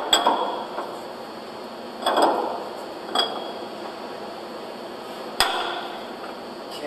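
A steel half-coupler knocks and clinks against the concrete pump's piston rod and adapter as it is fitted by hand: a few separate metal knocks, then a sharper click about five seconds in as it snaps into place.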